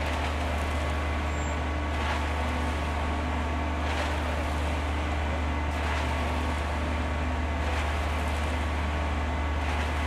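Heavy truck engine running steadily, a low, even rumble.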